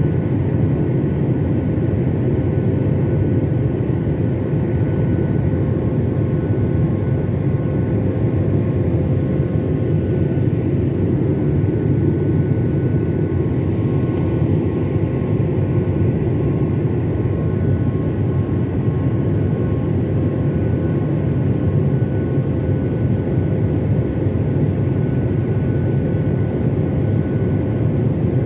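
Jet airliner's turbofan engines running steadily in the climb after takeoff, heard inside the cabin by the window: a deep, even rumble of engine and airflow with a few faint steady whining tones above it.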